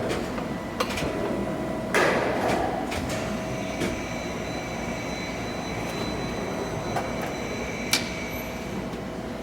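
Large Poręba lathe running on a test run: a steady mechanical din with several high whining tones, and a few sharp metallic clanks, the loudest about two seconds in.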